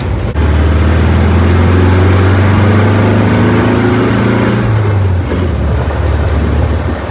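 Small manual-transmission car engine under way: the engine note breaks off briefly about a third of a second in, then pulls steadily with its pitch slowly rising for about four and a half seconds before dropping near the five-second mark.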